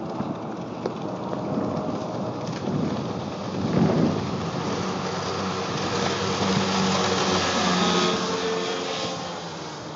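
Johnson 40 hp outboard motor running at speed as the skiff approaches and passes close by, over the rushing hiss of its wake and wind. It grows louder through the middle, is loudest near the end as the boat goes past, then starts to fade.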